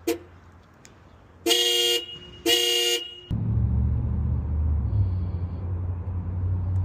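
A 2011 Nissan Rogue's horn sounds twice, each blast about half a second long, after a short blip at the very start. Then its 2.5-litre four-cylinder engine comes on suddenly and runs steadily, as the newly made key fob is tested.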